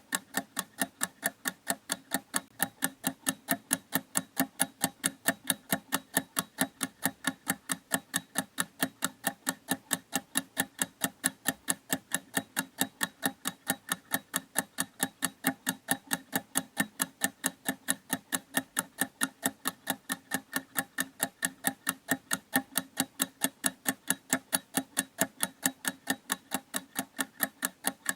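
Clock ticking steadily, with even, crisp ticks a few times a second.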